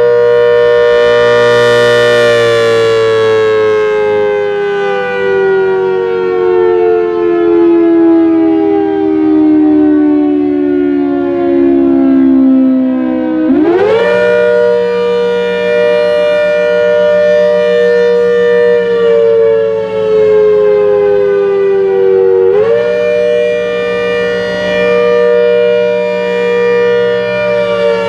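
ACA Hurricane siren head on a 7½ HP Thunderbolt blower sounding a manually worked attack signal: two tones together that sag slowly in pitch for about ten seconds, jump sharply back up about halfway, sag again and jump up once more near the end, over a steady low hum. Its loudness swells and dips as the horn rotates.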